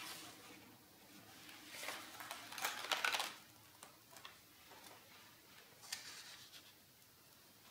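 Pages of a spiral-bound sketchbook being turned by hand: a paper rustle about two seconds in and a louder, longer one about three seconds in, then a few light brushes and taps as the hand smooths the page.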